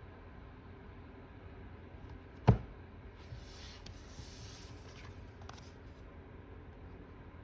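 A single sharp knock about two and a half seconds in, followed by a few seconds of soft rustling and rubbing, as of tarot cards being handled and laid on a table.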